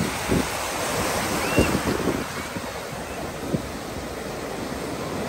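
Ocean surf breaking and washing in over shallow water, with wind buffeting the microphone now and then.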